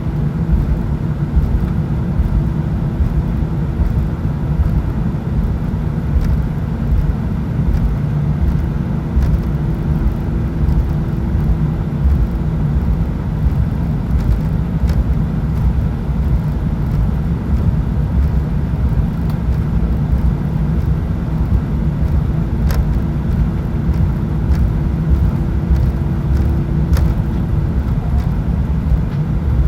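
Cabin noise inside an Airbus A319 on the ground with its jet engines at low power: a steady low rumble with a steady hum over it. The hum drops out briefly near the end.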